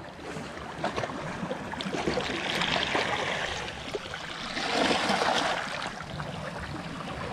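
Small sea waves washing over and draining off barnacle-covered shoreline rocks, the wash swelling twice, about two and five seconds in.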